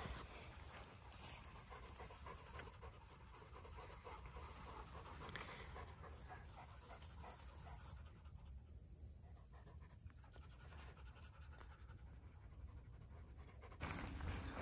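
A Cane Corso panting, faint and steady.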